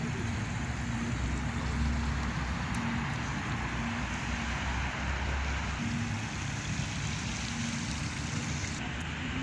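Steady city traffic noise, with a low rumble of wind on the microphone.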